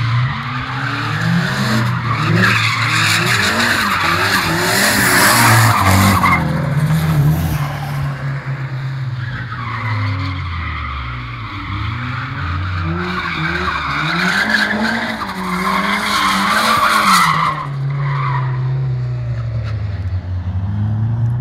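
Drift cars' engines revving hard up and down on and off the throttle, with long spells of tyre squeal as they slide. The squeal is strongest in two stretches, about one to seven seconds in and about ten to seventeen seconds in.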